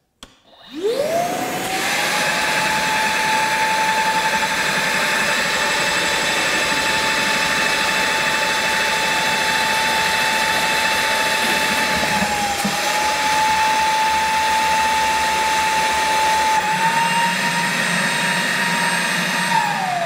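Milwaukee M18 FUEL dual-battery wet/dry vac switched on and spinning up to a steady high-pitched whine on its high setting, sucking water from a bucket up the hose with a strong rush of air. Its pitch steps up slightly about three-quarters of the way through, and it winds down as it is switched off at the very end.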